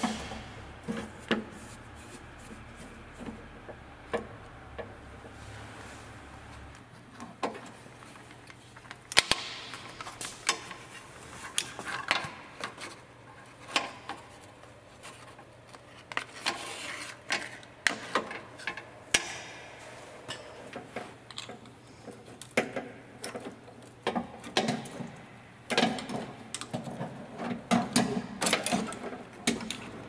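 Irregular clicks, taps and scrapes of metal and plastic as an Acura RSX door latch and lock actuator assembly is worked with a screwdriver and handled inside the door. A faint low hum stops about seven seconds in.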